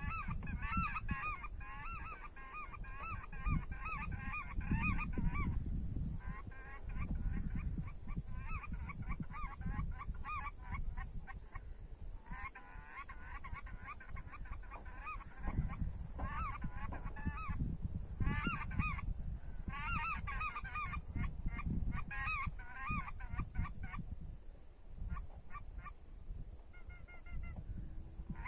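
Acrylic goose call with an acrylic insert blown in runs of rapid honks and clucks, broken by short pauses. Wind rumbles on the microphone throughout.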